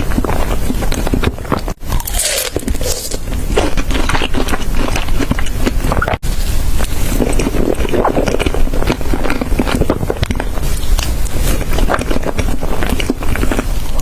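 Close-miked eating sounds: wet chewing and crunching of food in quick, irregular bites, with two brief drop-outs in the sound.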